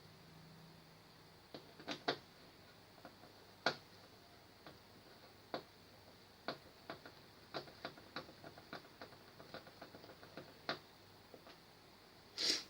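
Irregular light clicks and taps of small parts and hand tools being handled during TV backlight repair work, with one louder, slightly longer rattle near the end.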